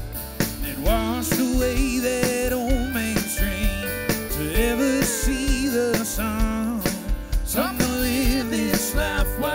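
Country band playing live: acoustic guitar, bass and drums under a lead melody of sustained notes that glide up into pitch and bend.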